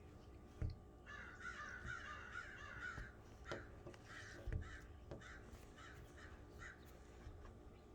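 Crows calling: a dense burst of chattering calls for about two seconds, then separate caws about twice a second. Two dull thumps close to the microphone, about half a second in and again halfway through, are the loudest sounds.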